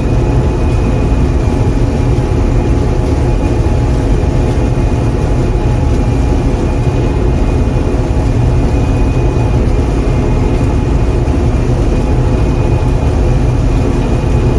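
John Deere 4400 combine running steadily while harvesting soybeans: a loud, even low drone with a thin steady high whine over it.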